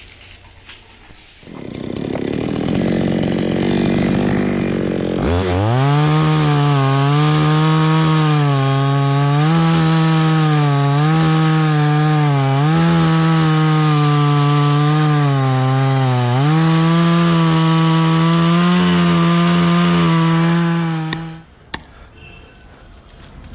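Chainsaw running, first at a low idle, then opened up to full throttle about five seconds in. Its steady high engine note dips in pitch briefly several times as the chain bites into the coconut trunk, and it cuts off sharply near the end.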